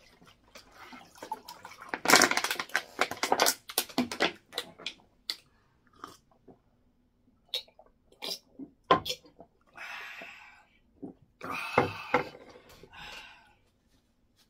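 Water poured from a plastic bottle into a mug, running for about two seconds, then scattered small clicks and short bursts of drinking and chewing noises.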